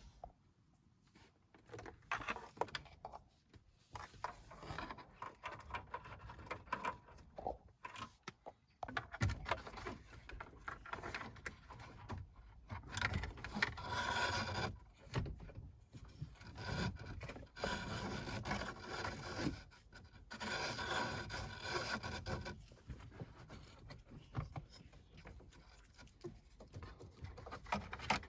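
Irregular rubbing and scraping with scattered clicks: a speaker cable being pushed and fed behind the car's plastic interior trim and dashboard panels.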